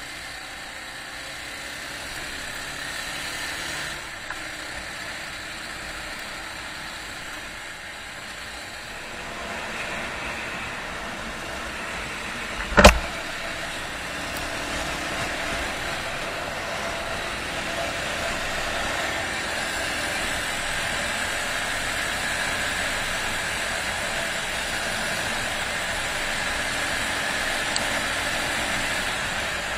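Honda XR250 single-cylinder four-stroke motorbike running along the road, engine and road noise heard from the bike-mounted camera, getting louder in the second half. A single sharp knock about halfway through.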